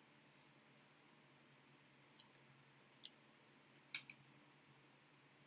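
Near silence with three faint, short clicks from eating, spaced about a second apart.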